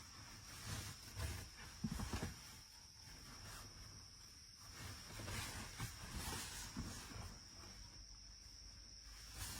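Crickets trilling steadily in one high, unbroken tone, with scattered soft knocks and rustles, a few louder ones about two seconds in.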